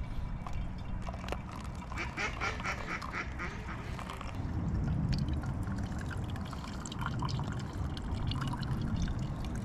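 Hot water poured from a camping pot into a pour-over coffee dripper. About two seconds in there is a quick rhythmic run of repeated sounds, lasting about a second and a half.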